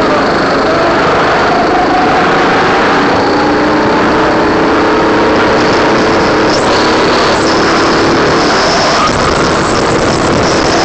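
Go-kart engine heard on board at full throttle, rising in pitch as the kart accelerates out of a corner onto a straight, over a steady loud rush of wind noise.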